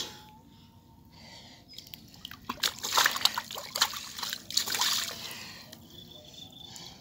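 Hands and arms splashing and sloshing in shallow muddy water while groping in the mud for a fish. The splashing is heaviest in the middle few seconds and fades near the end; a brief click comes at the very start.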